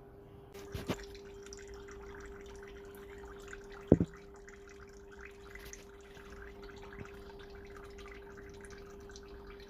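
Work noise on a hydraulic cylinder being removed: a steady hum with irregular faint ticks and crackles, a couple of knocks about a second in, and one sharp, loud knock about four seconds in.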